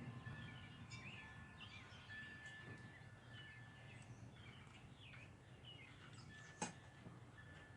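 Near silence with faint bird chirps in the background and a single sharp click about two-thirds of the way through.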